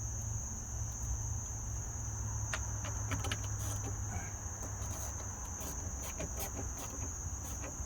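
Scattered light clicks and taps of hand tools and parts being handled over a steady high-pitched hum, with a low hum beneath.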